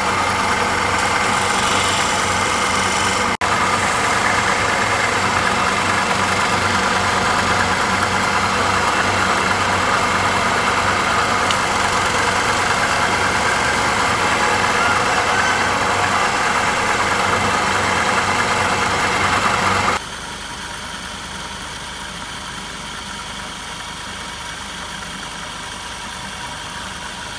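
Motor-driven wood lathe running with a steady hum while a hand-held turning chisel cuts into the spinning wood. About twenty seconds in the sound drops abruptly and carries on steady but quieter.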